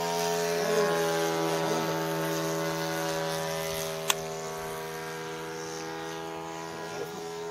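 Engine and propeller of a radio-controlled DH.60 Moth biplane floatplane model running steadily in flight overhead, a single buzzing tone with many overtones and an even pitch that grows slightly fainter after the midpoint. A sharp click about four seconds in.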